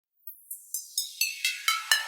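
Electronic background music fading in: a repeated synth note about four times a second, growing louder and fuller as the lower range opens up.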